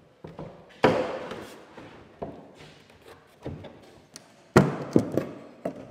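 Irregular knocks and thumps on a wooden ceiling beam as it is worked into place, about eight in all, the two loudest about a second in and near the end.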